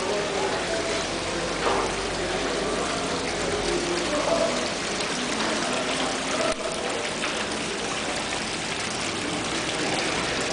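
Steady rushing noise like water running, the ongoing noise complained of in the hotel, with a brief click about six and a half seconds in.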